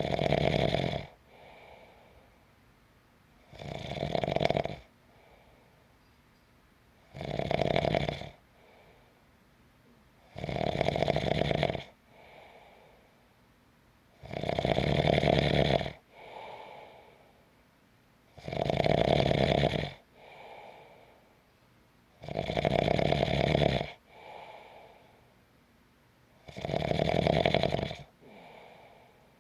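A person snoring in a slow, steady rhythm: a loud snore about every four seconds, eight in all, each followed by a softer breath.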